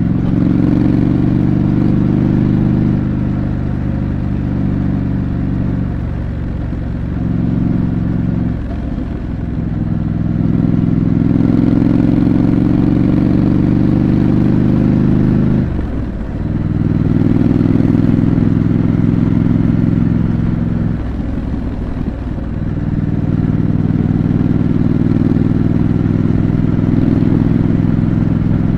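Stock exhaust of a Triumph Scrambler 900's 900 cc parallel-twin engine running at steady road speed under way. The note dips briefly several times as the throttle is closed and picked up again, as at gear changes.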